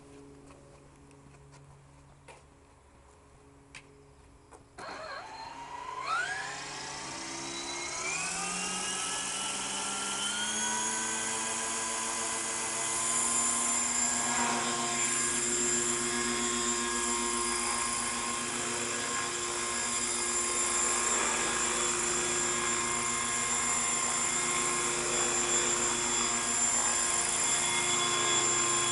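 Hurricane 550 model helicopter starting up: after a few seconds of quiet with a few clicks, its motor and rotor spool up with a rising whine that settles into a steady high-pitched whine at flying speed.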